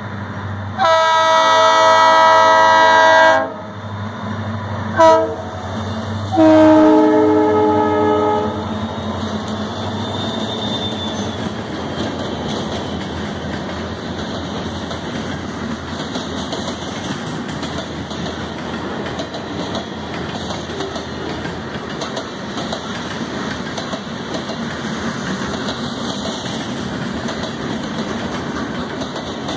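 Diesel freight locomotive's air horn sounds three blasts, long, short and long, each a chord of several tones. After the horn, freight cars roll past steadily, their wheels clicking over the rail joints.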